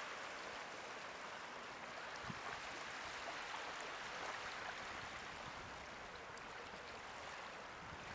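Caspian Sea water washing steadily: small waves making an even rushing hiss with faint scattered ticks.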